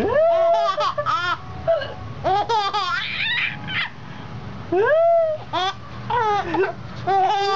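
Baby laughing loudly in repeated high-pitched squealing bouts while hiccuping.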